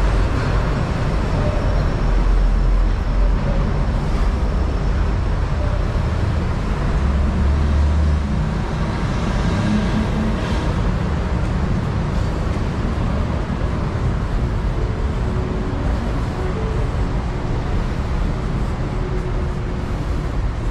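Steady low rumble of city traffic, an even background noise with no single event standing out; a faint steady hum comes in near the end.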